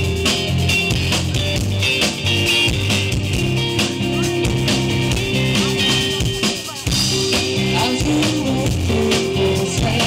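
Live rock band playing electric guitars over drums, loud and continuous, dropping back briefly about six and a half seconds in and coming back in full a moment later.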